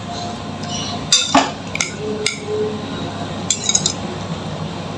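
Kitchen utensils clinking against dishes: a few separate sharp clinks, then a quick run of small ticks, over a steady background hiss.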